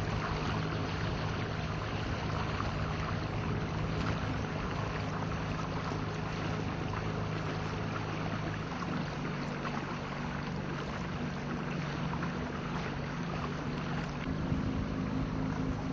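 Motorboat engine running steadily as the boat cruises along a channel, a low hum with a rushing hiss of water and wind over it. Its tone shifts slightly about halfway through.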